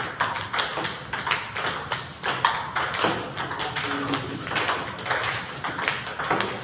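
Celluloid-type table tennis balls clicking rapidly off rubber paddles and the table in a multiball drill: a quick, irregular run of sharp ticks, several a second.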